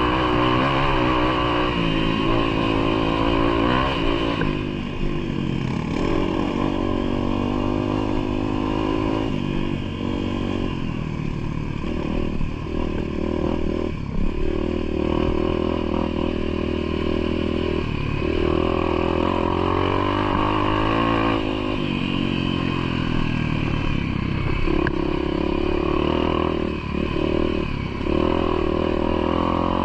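Motorcycle engine running under load, its pitch falling and rising again and again as the throttle opens and closes, with occasional clattering knocks.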